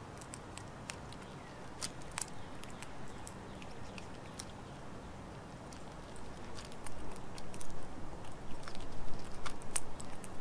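Gray squirrel eating bird seed and nuts: quick, crisp crunching clicks of chewing and gnawing, getting louder and busier about two-thirds of the way through.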